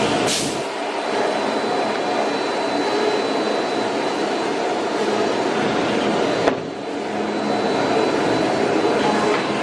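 CNC woodworking router running: a steady noise of the spindle and machine with a thin high whine, and a sharp click about six and a half seconds in.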